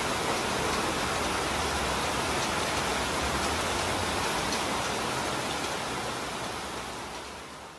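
Heavy rain falling steadily, an even hiss that fades out near the end.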